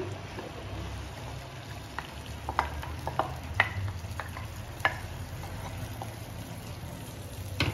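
Ground spinach purée being scraped from a glass bowl into a pan of hot ghee with a wooden spatula, with a light sizzle from the pan. Several sharp taps of the spatula against the bowl and pan come in the middle.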